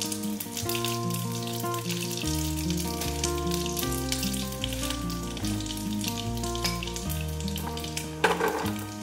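Whole cumin and coriander seeds sizzling and crackling in hot oil in a pan, with a brief louder crackle about eight seconds in. Background music with sustained notes and a bass line plays over it.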